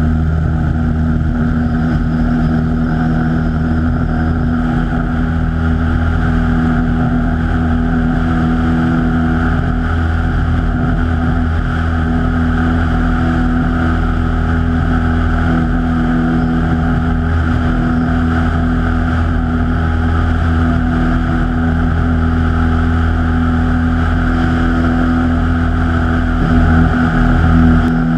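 Cessna 172's piston engine and propeller at takeoff power, a loud, steady drone that holds one pitch through the takeoff roll and climb-out, heard from outside the cabin with airflow noise.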